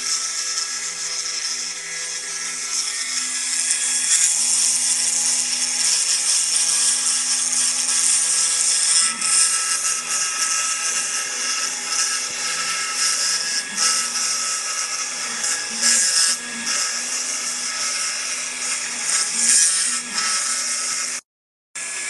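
Desktop CNC router spindle running and milling into a wooden plaque: a steady whine with a hiss of wood cutting that swells and dips slightly as the bit moves. It cuts out for a moment near the end.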